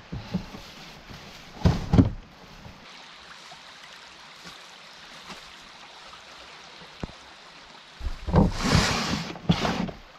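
Canoe paddle strokes splashing in river water, a short splash a little under two seconds in and a longer stretch of splashing near the end, over a steady rush of flowing water.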